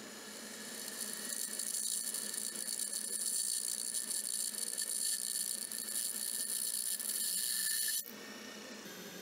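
Drill press drilling through a 5160 spring-steel knife blank: the motor runs and the bit cuts with a high-pitched noise that builds over the first few seconds. About eight seconds in the cutting noise cuts off suddenly, leaving the motor running with a lower, quieter hum.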